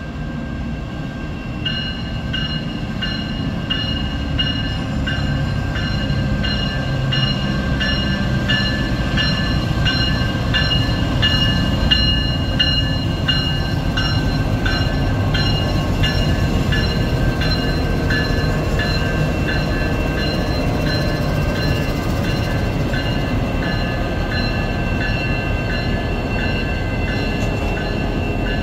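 Diesel freight locomotives hauling a grain train at a crawl, a steady low engine rumble. From about two seconds in, a high ringing squeal pulses about twice a second over it.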